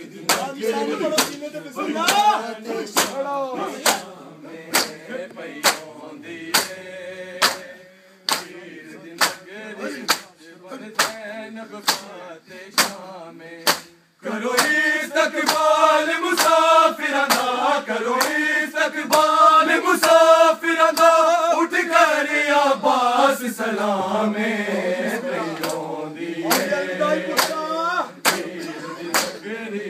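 Group matam: many hands slapping bare chests together in a steady beat of about three strikes every two seconds, under men chanting a noha in unison. The beat breaks off briefly about halfway, then loud unison chanting swells, and the beat sounds clearly again near the end.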